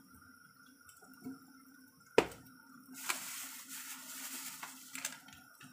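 Pot of beef and vegetable soup simmering with faint bubbling and dripping. A sharp clink sounds a little over two seconds in, then a hiss runs for a couple of seconds.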